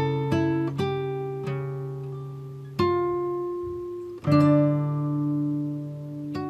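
Slow instrumental background music: single plucked notes that ring and fade, with a louder note about three seconds in and a fuller chord just after four seconds.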